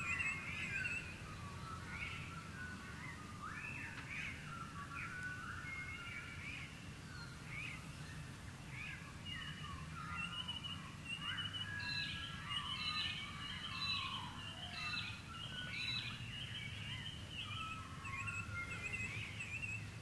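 Dawn chorus of Australian birds: many overlapping whistles and chirps, among them the varied whistles of noisy miners and the calls of Australian magpies. A steady low hum runs beneath, and the calls grow busiest about halfway through.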